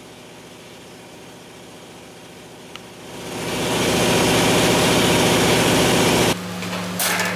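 A steady motor hum, then a loud machine noise that rises over about a second, runs steadily for about three seconds and cuts off suddenly, leaving a lower steady hum and a couple of short hisses near the end.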